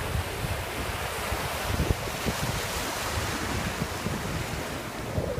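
Shallow surf washing in and out over the shore in a steady hiss, with wind buffeting the microphone in low gusty rumbles.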